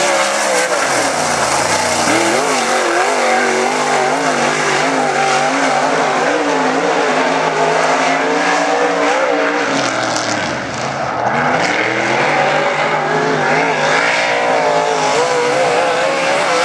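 Dirt-track modified race car's V8 engine at full throttle on a qualifying lap. Its pitch drops twice as the driver lifts for the turns, about a second in and again past the middle, then climbs back as he gets on the throttle down the straights.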